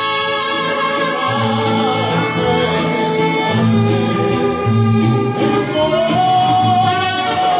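Mariachi band playing, violins to the fore over a steady bass line, with one long held note rising slightly near the end.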